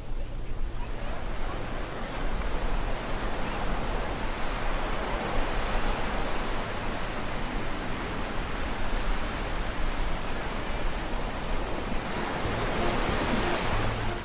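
Small waves washing up on a sandy beach: a steady rush of surf.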